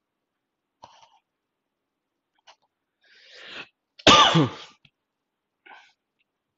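A man draws a quick breath and then coughs once, hard, into his fist. A few faint short noises come before and after.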